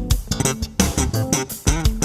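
A bass guitar bassline with plucked guitar notes and sharp percussive hits in a steady rhythm, played back through an in-ear monitor.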